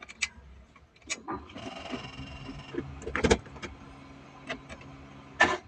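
A car's electrics being switched on for a start attempt after the ignition wiring was reconnected: a series of clicks, a brief electrical whir, then a low steady hum, with a loud click near the end.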